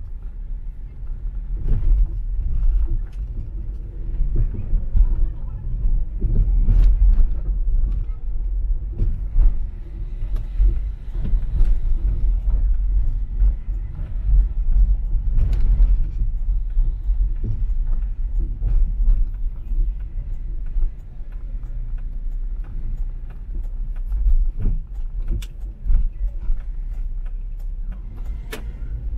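A car driving: steady low road-and-engine rumble, with frequent sharp knocks and rattles throughout.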